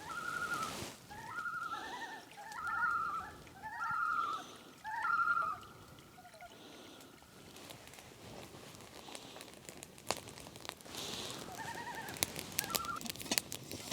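Common loons calling: a run of repeated, wavering calls that step between a lower and a higher note, several overlapping, dying away about halfway through. A few more calls come near the end.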